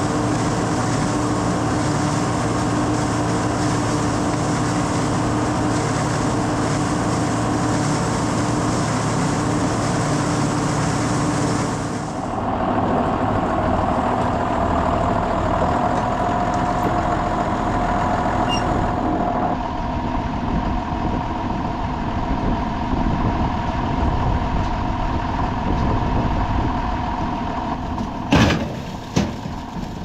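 Tractor-driven Gehl grinder-mixer running steadily, its hammer mill grinding ear corn over the tractor engine's hum. The sound changes abruptly twice, about 12 and 20 seconds in, and a few sharp knocks come near the end.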